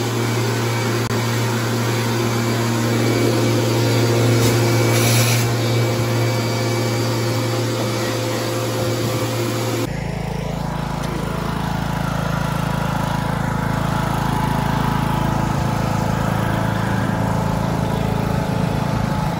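A vacuum cleaner running steadily as its wand cleans inside a cabinet. About ten seconds in, it gives way to a riding lawn mower's small engine running steadily as the mower tows a loaded cart.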